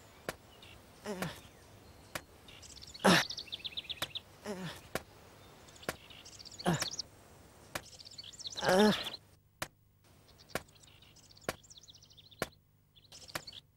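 Cartoon sound-effect track: birds chirping in short trills, scattered light clicks or taps, and a few short voice-like sounds about every two seconds.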